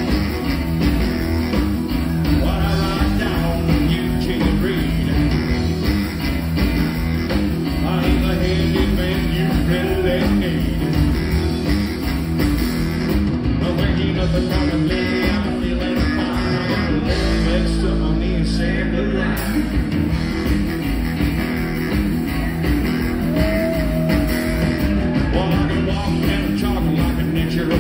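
Rockabilly band playing live: electric guitar, saxophone, upright double bass and drums, with a sung lead vocal.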